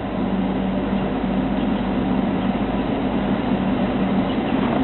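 A vehicle engine running steadily, a continuous rumble with a low hum that grows slightly louder.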